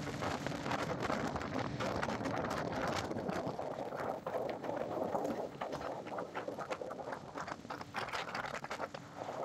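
Flat-bottom aluminium jon boat running near full throttle, its 30 hp Tohatsu three-cylinder outboard at about 5800 rpm, under a steady rush with the hull slapping the chop in quick, irregular knocks.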